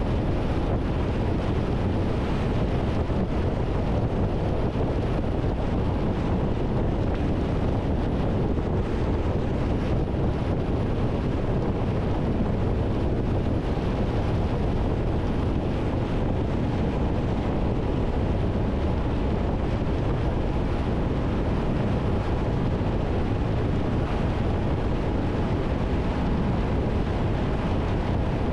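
Steady wind rush on the microphone over the even engine and road noise of a Triumph Tiger 1200 motorcycle cruising at motorway speed.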